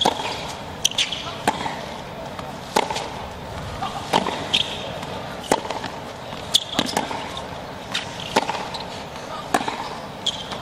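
Tennis rally: a ball struck back and forth with rackets, a crisp hit about every second and a half, with the ball bouncing on the hard court between hits.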